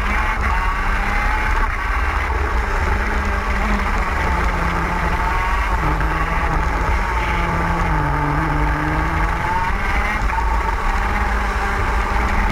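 TM K9C 125cc two-stroke KZ gearbox kart engine at high revs, heard from on board the kart. The note holds steady, sags a little about eight seconds in through a bend, then climbs again.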